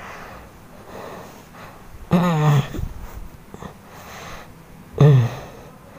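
Two drawn-out, wavering groans in a man's voice, the first at about two seconds and a shorter one near the end, with breathing between, as feet press down on his back in a trampling massage.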